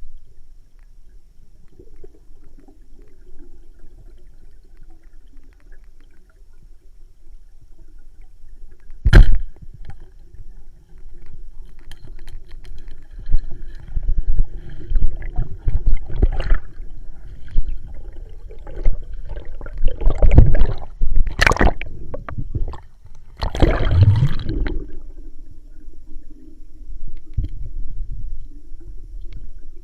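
Water sloshing and gurgling around a camera during a spearfishing dive, over a low rumble and a faint steady hum. There is a sharp knock about nine seconds in, and loud bursts of bubbling or splashing come in the second half.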